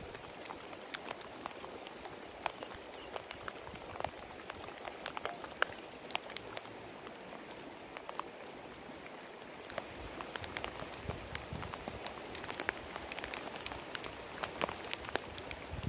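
Rain falling, a steady hiss with many separate drop ticks; it gets heavier about ten seconds in.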